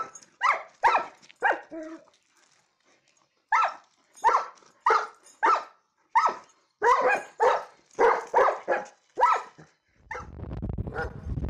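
A puppy barking in a run of short barks, about a dozen, with a pause of a second or so about two seconds in. Near the end the barking stops and wind rumbles on the microphone.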